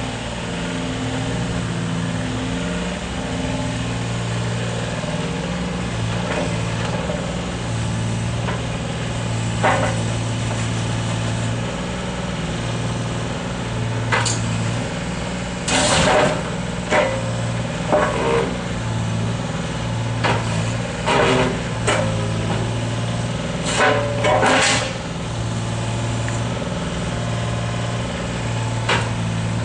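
Volvo EC25 mini excavator's diesel engine running steadily, its note swelling and dropping back as the boom, arm and bucket are worked. A series of sharp knocks and clanks comes from the machine, mostly between about 14 and 25 seconds in.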